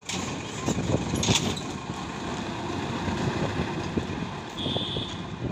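A bus engine running as the bus drives past close by and moves off into a low underpass, with a few sharper knocks a little over a second in.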